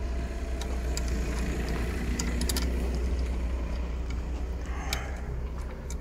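Steady low rumble with a few light, sharp metallic clicks from hand tools working at a car's rear brake caliper bolt.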